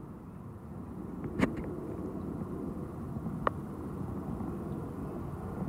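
Low, steady background rumble with two short clicks about two seconds apart.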